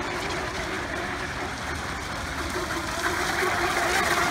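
Radio-controlled F1 tunnel hull race boats running flat out on the water, their motors getting louder about three seconds in as the boats come closer.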